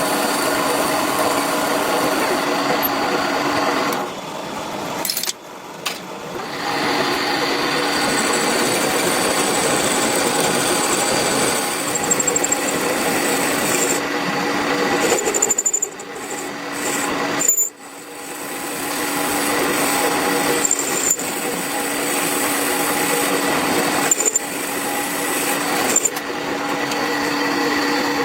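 Power tool running with a steady motor hum under a rough cutting or grinding noise. It drops away about five seconds in and twice around the middle, each time spinning back up.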